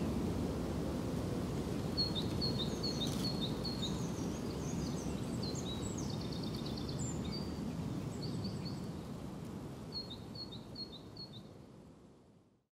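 Songbirds calling over a steady low outdoor rumble: a run of about five short, quickly repeated chirps, a fast trill midway, and another short run of chirps near the end, before everything fades out.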